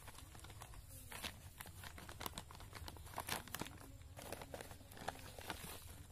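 Black plastic polybags crinkling and soil rustling as hands press and handle planting media in them, in scattered short crackles.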